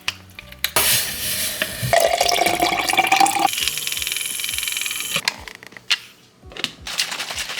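Water running into a container, probably from a tap. The pitch rises as the container fills, then the flow stops and a few light clicks follow.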